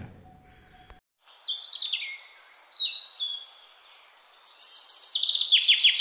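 Lovebirds' shrill chirping calls, starting about a second in: short falling chirps, then a rapid run of chirps near the end that cuts off sharply.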